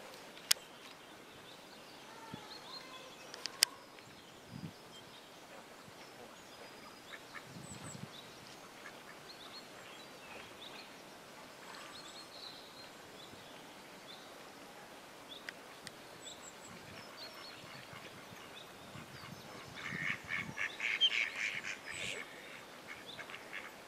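Faint chirps of small birds, then, near the end, a duck calling in a rapid run of quacks lasting a couple of seconds, the loudest sound here. Two sharp clicks in the first few seconds.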